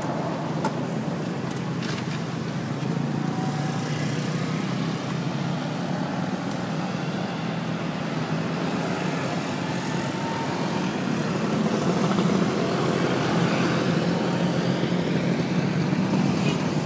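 Steady road traffic noise with engine rumble from passing vehicles, growing louder about two thirds of the way through as a vehicle comes closer.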